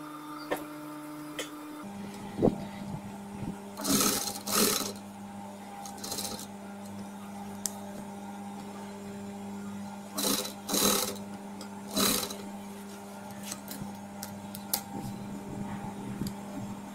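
Industrial sewing machine stitching a fabric strip closed: a steady motor hum, with several short louder bursts about four, ten and twelve seconds in.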